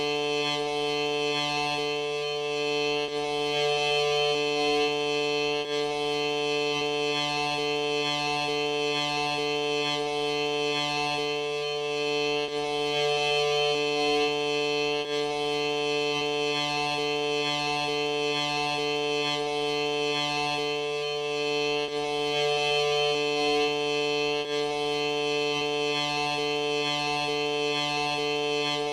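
Steady droning music-like tones, several notes held at once, with a few of them breaking and shifting in a pattern that repeats about every nine to ten seconds.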